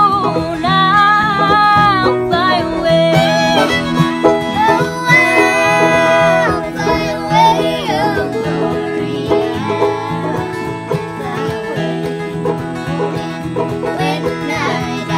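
Acoustic bluegrass-style music: girls' voices singing over strummed small guitar and fiddle.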